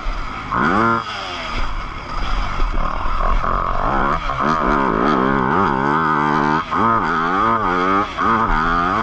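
Yamaha YZ250F motocross bike's single-cylinder four-stroke engine at racing pace, its pitch climbing and falling over and over as the throttle is worked and gears are changed, with short dips where the throttle is shut.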